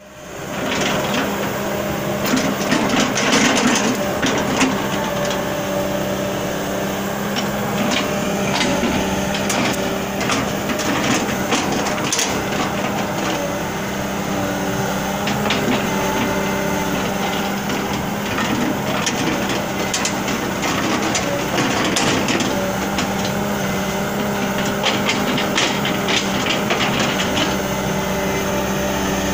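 Sumitomo excavator's diesel engine running steadily, its note shifting up and down as the log grapple works. Scattered sharp wooden knocks come from rubberwood logs being gripped and clattering together.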